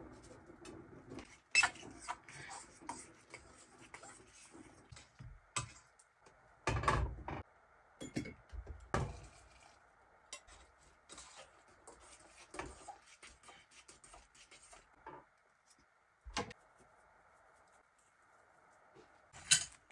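Stainless steel cookware handled on a portable gas stove: a pot lid lifted and set down, a steel cup emptied into the pot and a jar tipped over it, heard as scattered clinks, knocks and scrapes of metal, a few of them louder.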